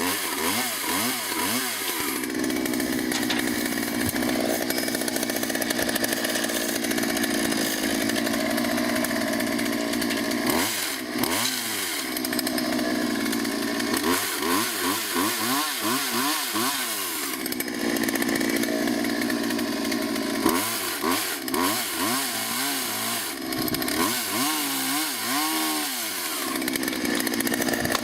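Chainsaw cutting a large tree limb, the engine held at high speed in long steady stretches and, several times in between, easing off and revving back up.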